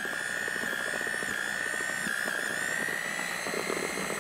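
Betty Crocker electric hand mixer running at low speed, its motor giving a steady high whine that wavers slightly in pitch, as the beaters whip cream cheese in a glass bowl.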